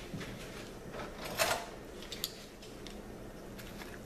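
Faint handling sounds of a blade cutting into a lionfish's belly: scattered small clicks, with a brief louder scrape about a second and a half in and a sharp click soon after.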